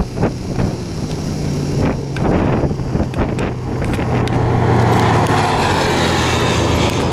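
Wind gusting on the microphone, then a quad bike and a small side-by-side running as they drive up, their engine note growing louder until about five seconds in and then holding steady close by.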